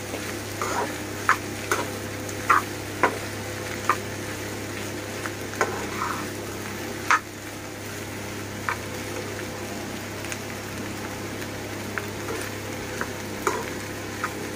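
Potato bhaji frying in a pan while a spatula stirs it, with short clicks and scrapes each time the spatula knocks against the pan.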